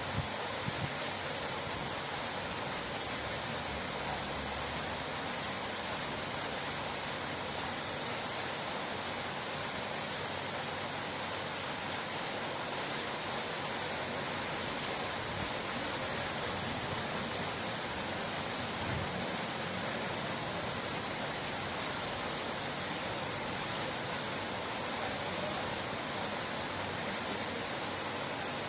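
Running water rushing steadily, an even hiss with no change over time, like a stream or small waterfall.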